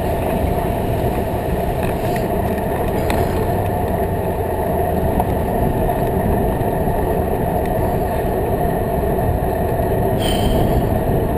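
Steady wind rush and tyre rumble from a bicycle rolling along a paved path, heard through a handlebar-mounted action camera's microphone. A brief high-pitched ring sounds near the end.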